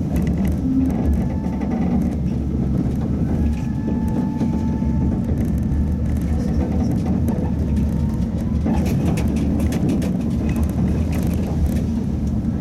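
Tatra T3 tram (MTTCh modernisation) running between stops, heard from inside the car: a steady low rumble of wheels on rail and running gear, with a faint whine. A run of sharp clicks and rattles comes about nine seconds in.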